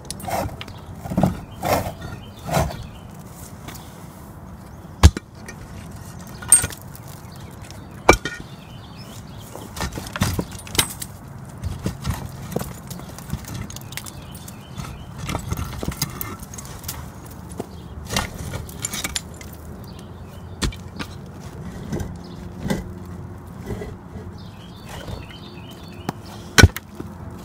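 Concrete blocks knocking and scraping against each other and the loosened mortar as they are worked free of a cracked block wall and lifted off by hand: irregular sharp knocks, with single louder clacks about five seconds in, about eight seconds in, and near the end.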